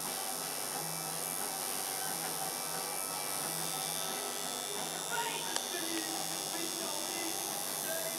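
Electric tattoo machine buzzing steadily.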